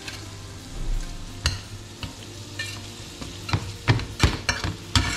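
Metal spatula and spoon scraping and clinking against a stainless steel frying pan while fish fillets sizzle gently in butter over low heat. The knocks come more often and louder in the second half, with several sharp clinks close together.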